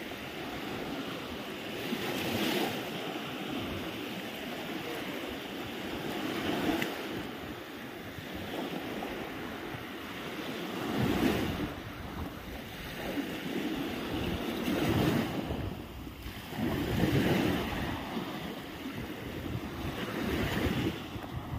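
Small sea waves breaking and washing up a sandy beach, the surf swelling and easing every few seconds, with wind buffeting the microphone.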